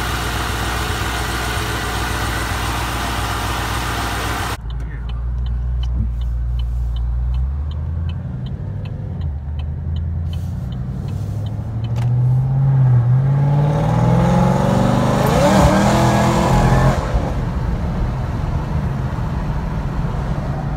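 Supercharged LSA 6.2-litre V8 in a Chevy SS idling steadily, then, heard from inside the cabin, running quietly with a light ticking about twice a second until about twelve seconds in, when the engine note climbs steeply and loudly through a short full-throttle pull before dropping back to a cruise.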